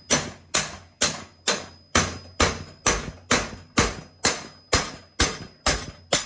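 Hammer blows on a pin punch, driving the roll pin that holds the core out of a steel X-Line running tool clamped in a vise. There are about fourteen blows at a steady two a second, each ringing briefly, and they stop near the end.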